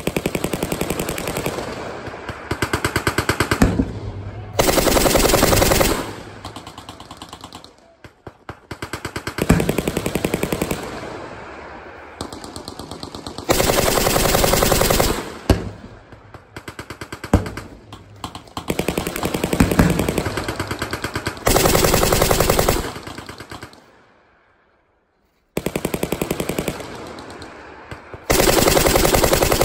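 Machine guns firing long, rapid bursts one after another, with short gaps between them and a pause of about a second and a half near the end.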